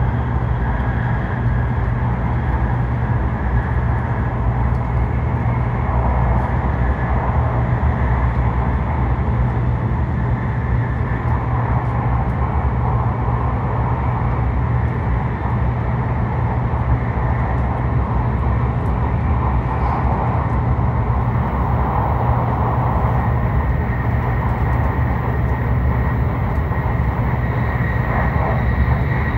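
Cabin noise of a Hokuriku Shinkansen E7/W7-series train running at high speed: a steady low rumble with an even rushing noise over it.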